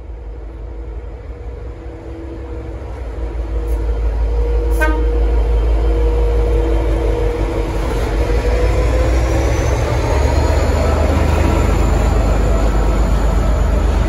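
N class diesel-electric locomotive (EMD 12-cylinder two-stroke diesel) working a departing train as it passes close by, with a deep engine rumble that grows louder over the first few seconds. From about eight seconds in its whine rises in pitch as the engine throttles up under load.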